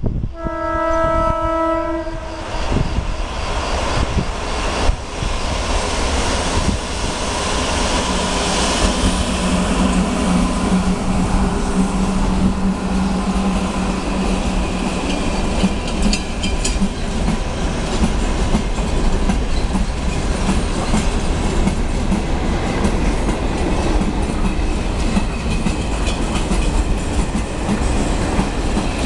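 Freight train with Renfe class 269 electric locomotives passing close: a horn blast of about two seconds at the start, then the steady rumble and clickety-clack of locomotives and loaded container wagons rolling over the rails, with a low hum as the locomotives go by.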